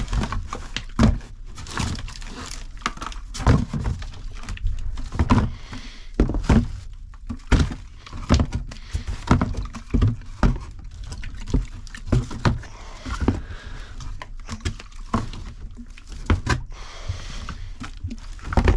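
Discarded goods being handled and dropped into a cardboard box inside a dumpster: an irregular run of knocks and thuds, with some liquid sloshing.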